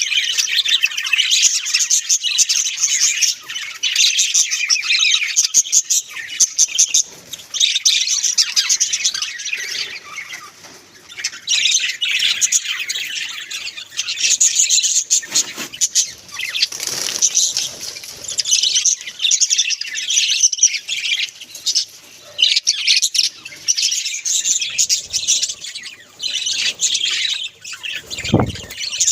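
Several budgerigars chattering and warbling continuously, a dense stream of fast, high chirps and squeaky twitters with short pauses.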